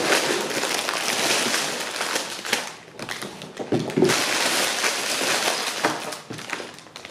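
Sealed plastic bags of LEGO parts crinkling and rustling as they are tipped out of the set's cardboard box and pushed about on a table, the loose pieces inside clicking. There is a brief lull about three seconds in.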